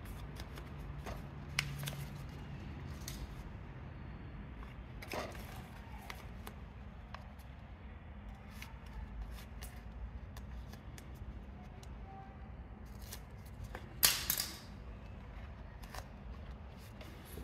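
Adhesive foam sealing strip being handled, cut and peeled for fitting to a radiator: scattered rustles, clicks and snips, with one louder short rasp of the strip or its backing about fourteen seconds in.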